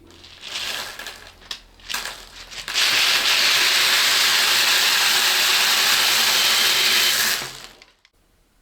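Beads pouring out of a bottle: a few scattered rattles, then a dense, steady rattling rush of beads for about four and a half seconds that tails off near the end.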